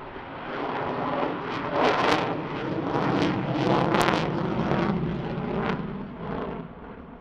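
F-22 Raptor's twin Pratt & Whitney F119 turbofan jet engines heard from below as the fighter maneuvers overhead. The jet noise swells to a peak with sharp crackling about two to four seconds in, then fades away toward the end.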